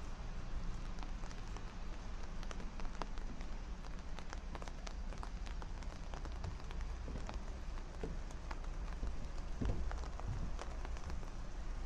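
Steady rain, with many separate drops striking close to the microphone as sharp ticks over an even hiss.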